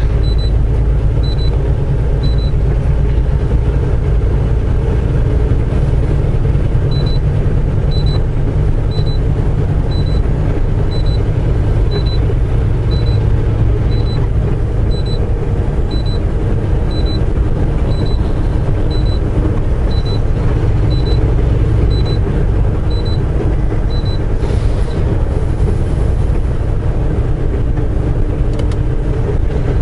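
Semi truck cab at highway speed: a steady low engine and road rumble. Over it, a short high electronic beep repeats about once a second, stopping for a few seconds near the start and again for the last few seconds.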